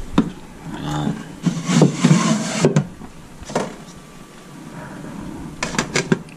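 A glass pot lid clinks several times against a metal pan as it is set down, about six seconds in. Earlier comes a louder, brief, indistinct low sound with a breathy hiss, and a single knock.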